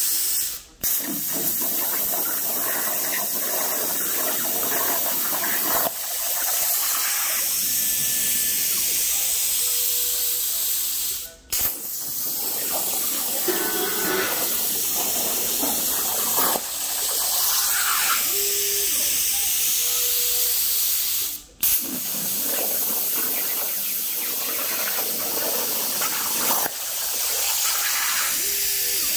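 CNC plasma cutter cutting 3/16-inch plate: a steady loud hiss of the arc and air, which stops for about half a second three times (about a second in, near the middle and about three quarters through) as the torch finishes one cut and fires up on the next.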